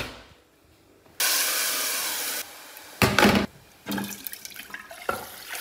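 Washed rice and dal poured into hot oil in a pressure cooker: a loud sizzling hiss for just over a second that drops to a quieter sizzle. A loud clatter about three seconds in is followed by lighter knocks.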